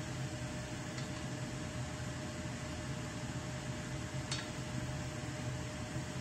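A steady machine hum with a constant tone. Twice, faint clicks of chopsticks against a metal bowl as eggs are beaten.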